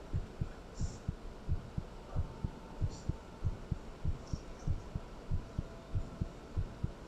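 Heartbeat, close-recorded, beating in a steady, even rhythm of low, dull thumps.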